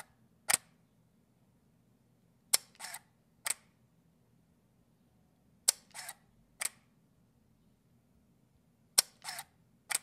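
Canon 5D DSLR shutter firing with the mirror out of action and no lens mounted, three times about three seconds apart. Each shot is a sharp click, a short mechanical whir, and a second click about a second later, with a lone closing click just after the start.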